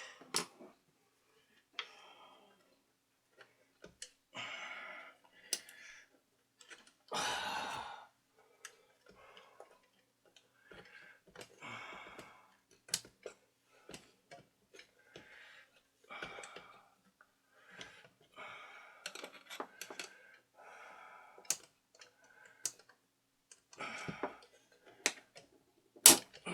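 Scattered small clicks and taps, with brief bits of handling noise, as small parts are worked onto a record player chassis by hand.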